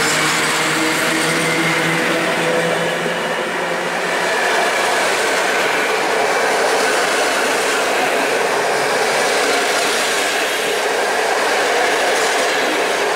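PKP Intercity passenger coaches rolling past at speed, close by: a loud, steady rush of wheels on rail.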